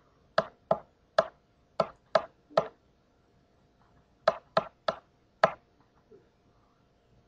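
Sharp clicks at a computer as it is worked by hand: six quick clicks in the first three seconds, a pause, then four more about four to five and a half seconds in.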